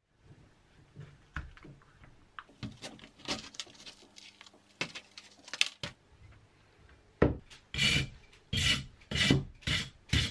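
A toothed blade rasping across a hardened plaster foot cast. It starts as light, scattered scraping and handling of the plaster, then turns into five strong strokes about half a second apart near the end.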